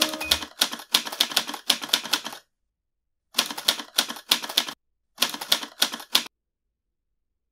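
Typewriter sound effect: fast clacking keystrokes in three runs with short pauses between them, matched to on-screen text being typed out letter by letter.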